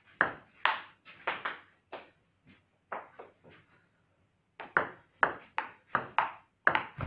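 Table-tennis ball clicking off the bats and the table in a rally: a run of quick hits, a lull of about a second in the middle, then a faster exchange near the end.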